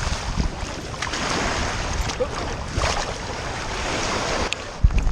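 Waves washing on a beach and wind buffeting the microphone of a GoPro worn on a dog's back, as an even rushing with a low rumble. A sharp knock comes near the end.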